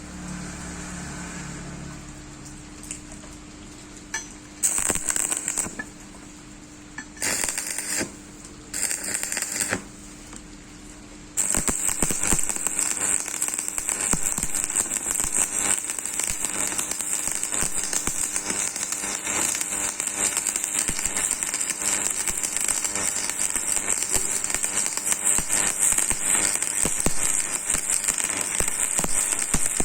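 Electric arc welding: the arc is struck in three short bursts, then about a third of the way in it catches and runs steadily with a continuous crackling sizzle.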